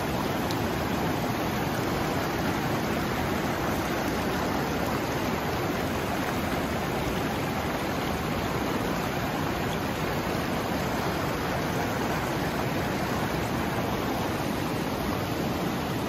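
Lidder river gushing over shallow rapids and boulders: a steady, even rush of fast-flowing mountain river water.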